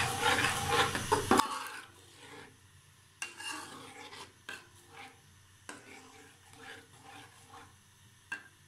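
Metal slotted spoon stirring and scraping thick sauce in a frying pan, louder for the first second and a half, then soft scrapes with a few light clinks of the spoon against the pan.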